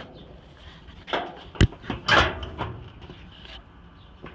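Knocks and a scrape from dryer parts being handled and fitted back together, with one sharp knock about a second and a half in.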